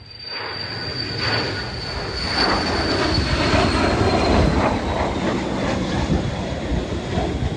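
Military jet passing overhead: a loud rushing roar that builds to a peak around the middle, with a high whine that slowly falls in pitch.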